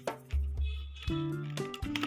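Background music: held notes over a bass line with a steady beat.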